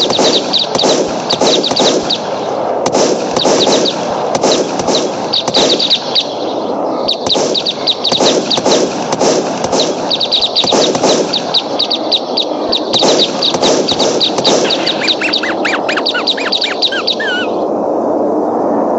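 Birds chirping in quick repeated runs of high notes over a dense crackling din, with a few lower sliding calls about three-quarters of the way through.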